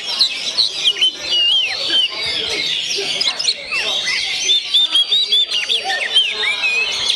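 Oriental magpie-robin (kacer) singing: a long, rapid run of varied whistled notes, quick rising and falling slurs and chatter, with hardly a pause.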